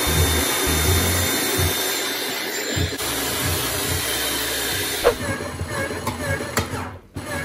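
Hand-held hair dryer blowing steadily on a wet dog's coat for about the first five seconds, then giving way to background music with a repeating pattern.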